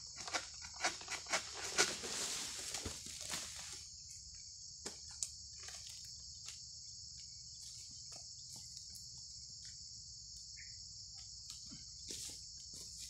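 Steady, high-pitched insect chorus of crickets or cicadas droning. In the first four seconds a quick run of clicks and knocks comes with a rustling swell, then scattered single clicks follow.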